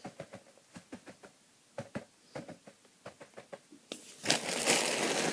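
Paper-flake hamster bedding being spread by hand, with light scattered crackles and rustles, then a louder, denser rustle for the last second and a half or so as more bedding is tipped and pushed about.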